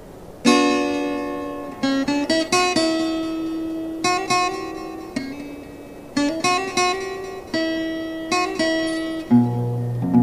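Background music of plucked strings: chords and short runs struck every second or two, each ringing and fading, with a low bass coming in near the end.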